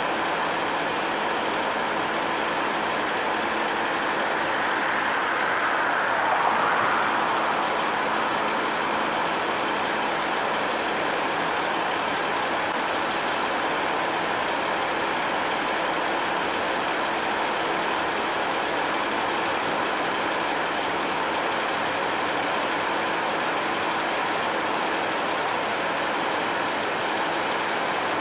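Kenworth T800 tri-axle dump truck running steadily while its hydraulic hoist lowers the raised dump body, with a slight swell about six seconds in.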